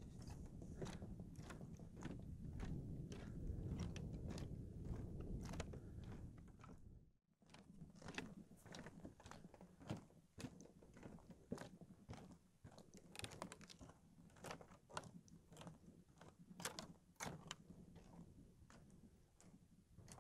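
Footsteps of a person walking at about two steps a second on a wooden boardwalk, each step a short crunching tap. A low rumble sits under the steps for the first seven seconds, broken off by a brief dropout.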